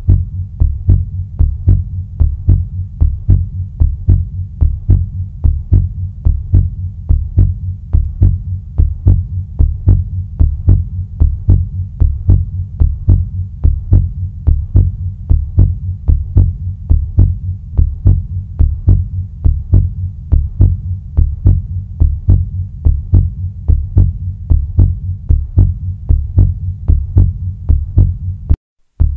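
Heartbeat sound effect: low double thumps repeating in a steady rhythm, broken by a brief gap near the end.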